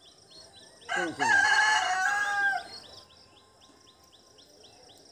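A rooster crows once, about a second in. The call lasts nearly two seconds and ends on a long held note. Faint high chirping runs underneath, about five chirps a second.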